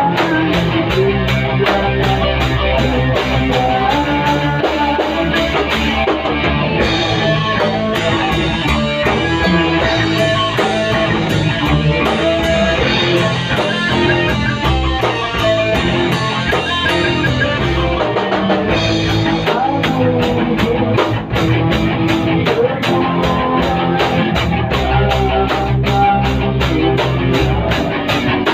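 Rock band playing: electric guitars, bass guitar and drum kit. The drums keep a steady ticking cymbal beat, switch to a fuller, washier pattern about six seconds in, and go back to the ticking beat about nineteen seconds in.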